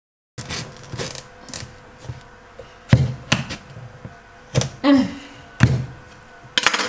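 Kitchen knife cutting into a whole butternut squash on a wooden chopping board: irregular sharp knocks and clicks of the blade against the hard squash and the board.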